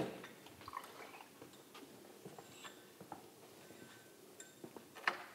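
Liquid poured through a small glass funnel into laboratory flasks, with faint trickling and small clinks and taps of glassware being handled. A sharper knock comes right at the start and another clink near the end.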